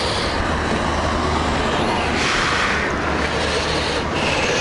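Harley-Davidson Low Rider ST's Milwaukee-Eight 117 V-twin engine running steadily, with a steady rushing noise over it.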